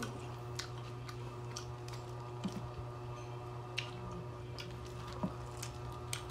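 Eating sounds of crispy fried chicken being torn by hand and chewed: scattered soft clicks and smacks at uneven intervals, over a steady low electrical hum.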